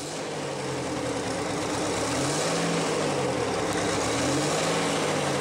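Detroit Diesel 16V92 turbocharged two-stroke V16 diesel running on a test stand, its engine speed briefly rising and falling twice. The sound swells over the first couple of seconds, then holds steady.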